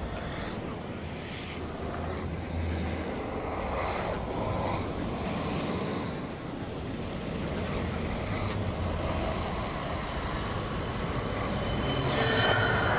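A steady rushing, rumbling whoosh, a sound effect for a swirling vortex tunnel. Near the end, music begins to come in.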